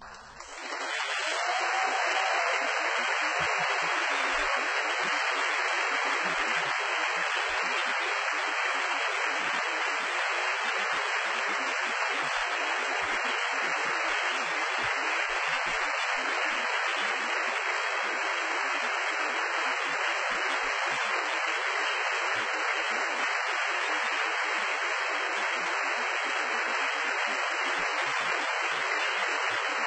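Audience applause swelling over the first couple of seconds, then steady and dense.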